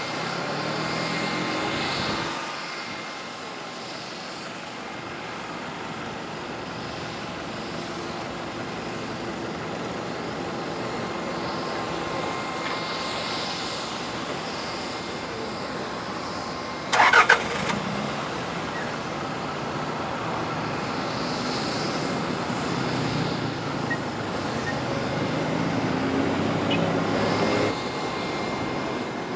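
Steady drone of aircraft and ground-vehicle engines on an airport apron, with a thin steady whine running through it. A brief loud clatter comes a little past the middle, and an engine rises in pitch near the end.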